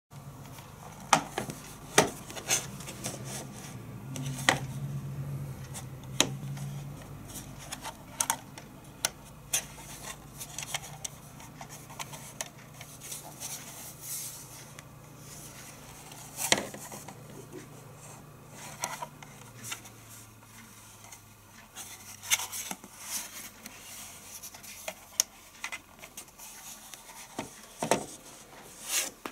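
Plastic casing of an AVM FRITZ!Box Fon WLAN 7170 router being handled on a wooden desk: irregular sharp knocks and taps with rubbing between them as it is turned over and set down. A low hum underneath fades out about twenty seconds in.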